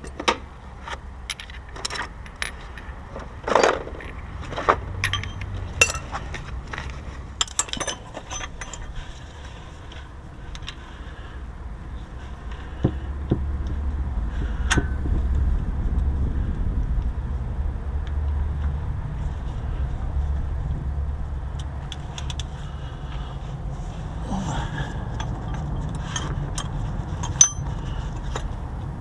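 Scattered metallic clicks, clinks and knocks of hand tools working under a vehicle, with a steady low rumble that builds about halfway through.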